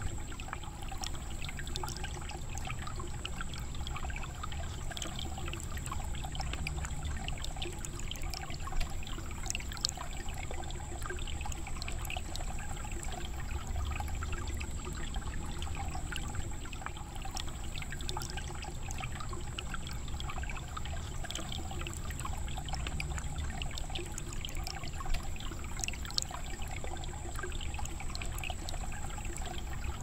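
Water pouring steadily from a cut bamboo spout and splashing into a shallow pool: a continuous trickling pour peppered with small splashes.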